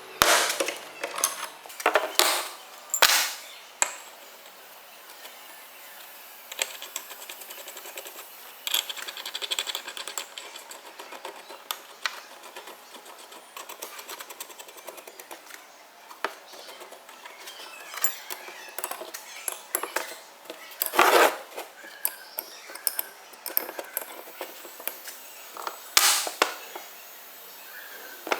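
Hand work on small steel parts: a few sharp metal knocks and clanks, the loudest about 21 s in, with stretches of fast light ticking and clinking between them.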